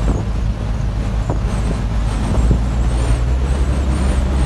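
Pickup truck driving along a rural road: a steady low drone of engine and road noise with wind rushing past. The drone's pitch shifts slightly about halfway through, and a couple of faint ticks sound.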